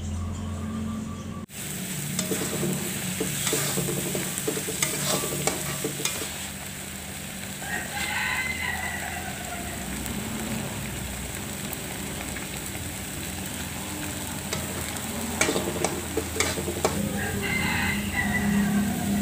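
Spice paste sizzling as it fries in oil in a wok, with the clicks and scrapes of it being stirred. A bird calls twice in the background, around eight seconds in and again near the end.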